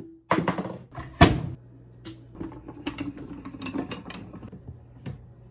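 Vertical sausage stuffer being handled: a few hard metal clunks as its canister and geared top are set in place, the loudest just after a second in. Then a run of lighter, irregular clicking and rattling as the crank handle is turned.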